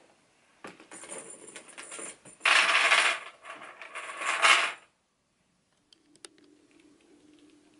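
Metal chain strap of a quilted leather crossbody bag jingling and clinking as it is handled, loudest in two stretches in the first few seconds, then cutting off suddenly, leaving a faint hum and a single click.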